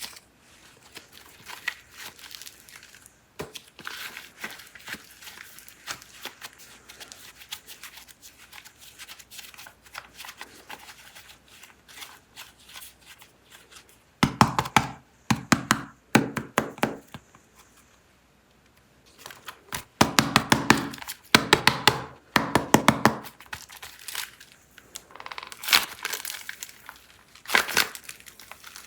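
Plastic clay packaging crinkling and being torn open as packs of super clay are unwrapped, with irregular crackles throughout and two louder bursts of rapid crackling, around the middle and about two-thirds of the way in.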